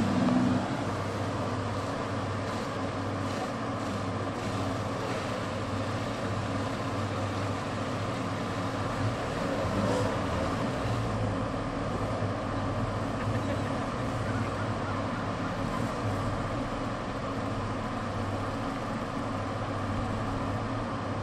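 Nissan Xterra's engine running steadily at low revs as the SUV creeps through a muddy, bumper-deep water puddle.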